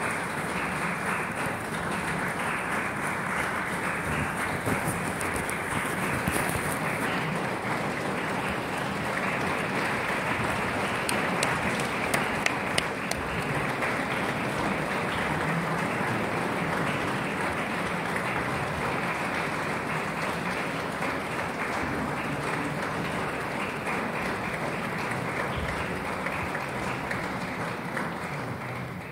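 A hall audience applauding steadily, with a few sharper claps around the middle, then dying away at the end.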